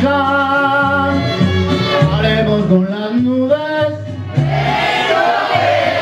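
Man singing a ranchera ballad live into a microphone over backing music, holding long notes with vibrato.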